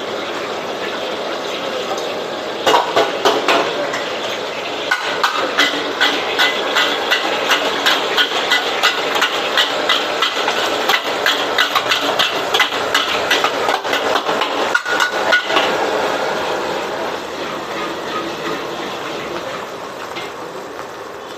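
Metal spatula repeatedly striking and scraping a steel wok, a fast run of clanks about three a second that stops about 16 seconds in, over the steady hiss of a gas wok burner.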